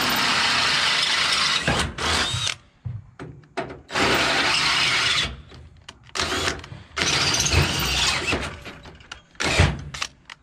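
Cordless drill enlarging pre-drilled bolt holes in a steel trailer rail, run in several bursts of one to two seconds with short pauses between.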